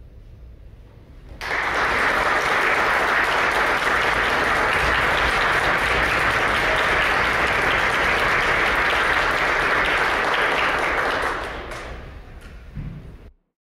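Audience applauding, starting suddenly about a second and a half in, holding steady, then thinning out near the end before cutting off abruptly.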